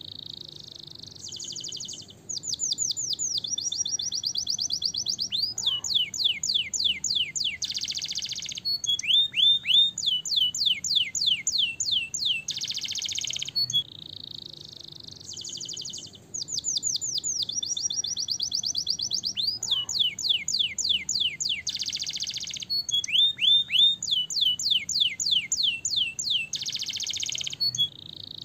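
Domestic canary singing a long song of rapid trills and rolls of quick falling whistles, with dense buzzy rolls between them. The same song sequence runs through twice.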